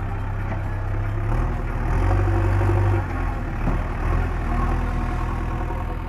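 Diesel engine of heavy mining machinery running steadily, its low note shifting up and down a few times and swelling for a second or so about two seconds in.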